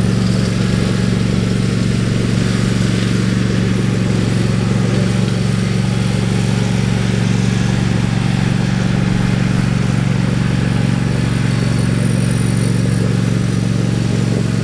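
Camera drone's motors and propellers humming loudly at a steady pitch.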